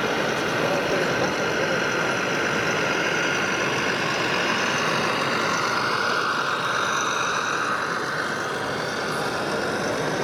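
Radio-controlled Scania truck running steadily, its sound module giving a diesel truck engine sound, over the constant noise of a busy hall.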